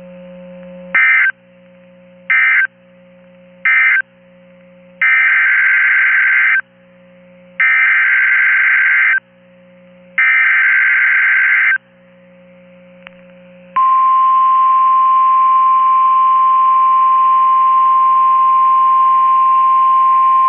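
NOAA Weather Radio SAME/EAS data bursts: three short warbling digital bursts (the end-of-message code), then three longer bursts (the header of the next alert), followed about 14 seconds in by the steady single-pitched warning alarm tone that signals a new warning.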